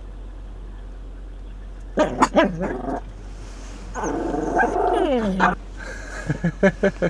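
A dog inside a moving van barking a few short times about two seconds in, then a longer drawn-out call that falls in pitch, and a few more short sounds near the end, over the steady hum of the van on the road.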